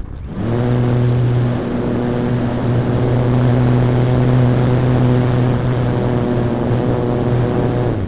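Motor and propeller of an ASW28 model glider running at a steady pitch, heard from the onboard camera over wind rushing past the microphone. It switches on about half a second in and cuts off just before the end, powering the model between glides.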